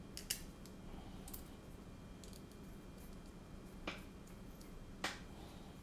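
Small sharp clicks and taps of drone frame parts and standoffs knocking together as the standoffs are hand-tightened onto a frame plate, four louder clicks spread through, the last the loudest, over a faint steady hum.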